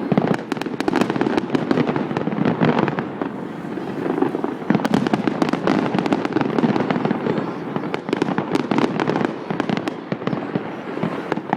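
Aerial fireworks display going off: a dense, unbroken run of bangs and crackles.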